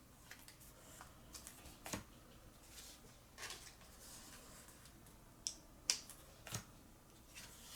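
Faint rustling and light clicks of trading cards being handled, with three sharper taps between about five and a half and six and a half seconds in.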